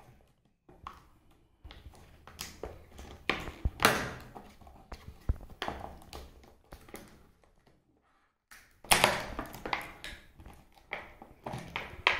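Stiff clear plastic blister packaging being pried and peeled open by hand: irregular crinkles, crackles and snaps of the plastic, loudest about four seconds in and again around nine seconds.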